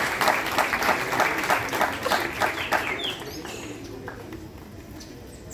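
An audience applauds a correctly spelled word. The clapping is loudest at first and dies away about three seconds in.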